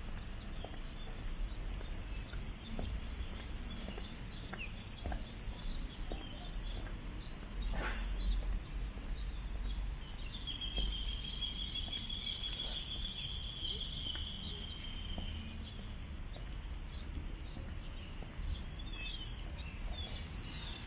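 Outdoor city-park ambience on a wet day: a steady low background rumble with scattered small ticks and bird chirps. About halfway through, a high thin tone holds for roughly five seconds.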